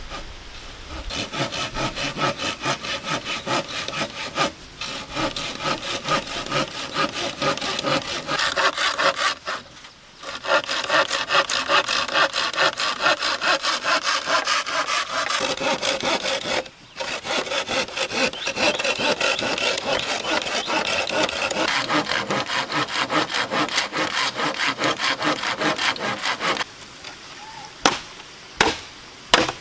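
A hand saw cutting through green bamboo culms in quick, steady back-and-forth strokes, pausing briefly three times. Near the end the sawing stops and a few separate sharp chops of a large knife blade into bamboo follow.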